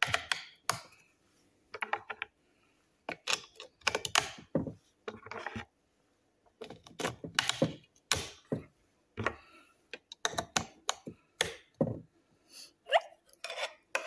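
AA batteries being pressed one by one into the plastic battery holder of a Secureye glass door lock, making a string of irregular clicks and clacks.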